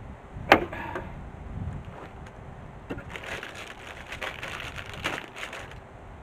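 Shovelling sand-and-gravel mix into a cement mixer drum: a sharp knock about half a second in as a shovelful goes into the drum, then, from about three seconds in, repeated gritty scraping as the shovel blade is pushed into the gravel pile.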